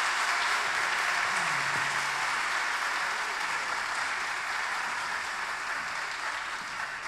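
Audience applauding in a theatre, a steady clatter of many hands that slowly dies down towards the end.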